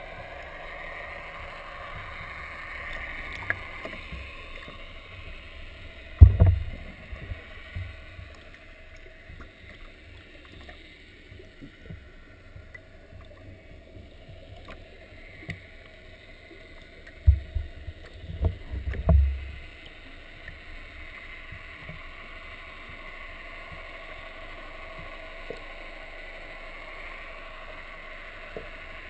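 Steady underwater noise picked up by a submerged camera. Heavy low thumps come once about six seconds in and several more times between about seventeen and nineteen seconds.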